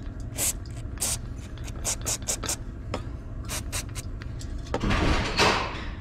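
Aerosol carburetor cleaner (gum cutter) sprayed through a small carburetor jet to flush it out: a run of quick hisses over the first four seconds, then a longer hiss about five seconds in.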